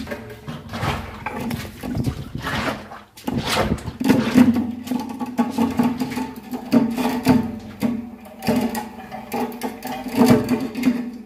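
Work at a concrete-ring well: a rope-hung bucket of crushed stone is lowered down the shaft, with irregular knocks and scrapes over a steady low drone that wavers in loudness.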